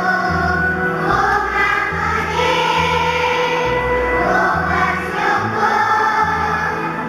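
Kindergarten children's choir singing together over an instrumental accompaniment with a bass line that steps from note to note.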